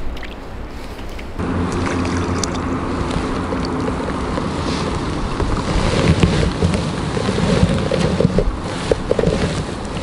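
Wind buffeting the microphone beside rippling lake water, with a steady rumble that gets louder about a second and a half in.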